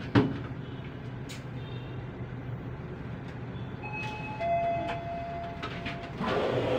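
Elevator car running with a steady low hum, and a sharp thump just after the start. Two overlapping steady tones sound for about two seconds in the middle, and a louder rush of noise sets in near the end.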